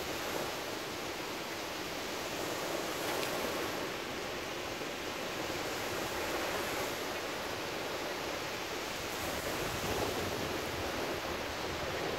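Small ocean waves breaking and washing up onto a sandy beach, a steady rush of surf that swells and eases every few seconds.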